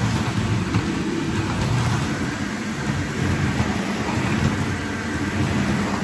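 Shark upright vacuum cleaner running steadily as it is pushed over a tiled floor, its motor noise carrying a faint steady high whine.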